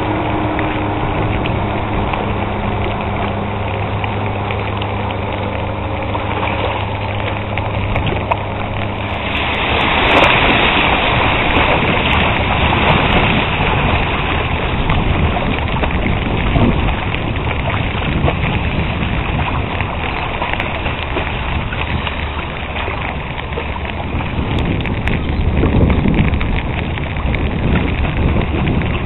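Low, steady engine hum of a small cargo ship's diesel passing close by, mixed with wind buffeting the microphone. The hum is clearest for the first nine seconds; then the wind noise swells, with a strong gust about ten seconds in.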